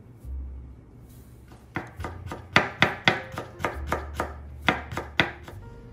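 Kitchen knife chopping pickled red turnip on a wooden cutting board: about a dozen quick strikes, three or four a second, starting nearly two seconds in and stopping shortly before the end.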